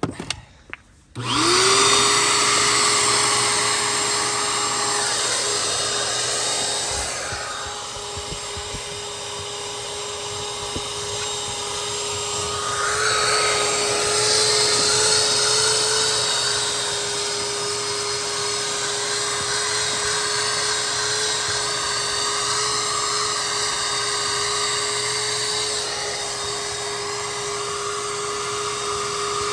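Small shop vac switched on about a second in. Its motor spins up quickly to a steady whine and runs over a rush of air, and the hiss of the suction shifts as the nozzle works over the car's floor mats and seats.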